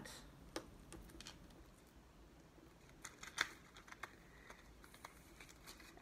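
Faint scattered light taps of fingers pressing a flower onto sticky contact paper on a tabletop, with a small cluster of clicks about three seconds in.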